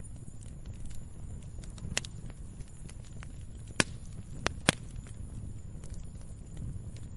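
Wood fire burning in a fireplace: a low steady rumble of flames with scattered crackles and a few sharp pops, the loudest ones close together about four to five seconds in.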